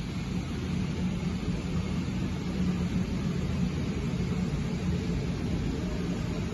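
Steady low mechanical rumble with a faint hum: the background drone of a large industrial shop floor.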